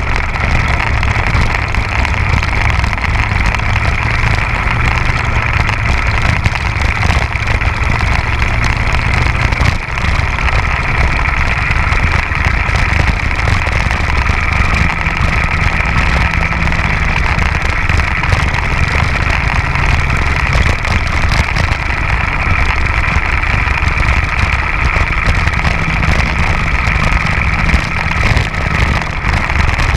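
Bambino kart's small two-stroke engine running hard under race conditions, heard close from onboard, with a steady dense sound and engine tones shifting slightly in pitch. There is a brief dip about ten seconds in.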